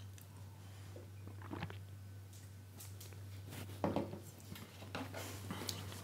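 Faint sounds of a man drinking from a glass of water: a few soft swallows and small knocks, the clearest about four seconds in, over a low steady hum.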